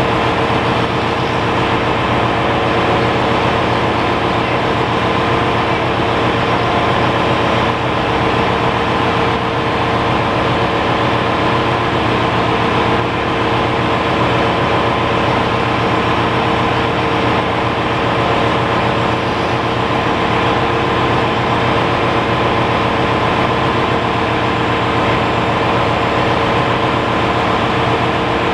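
Steady ship's engine-room machinery noise: a constant loud hum with several steady tones over a broad rush. It comes from running auxiliary machinery while the main engine is stopped for piston overhaul.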